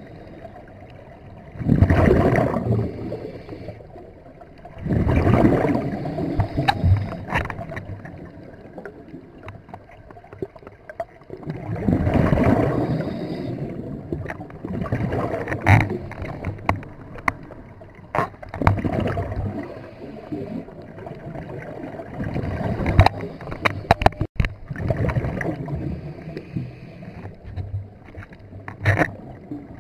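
Scuba diver's exhaled bubbles heard underwater: a burst of bubbles from the regulator about every few seconds, six times, with small clicks between.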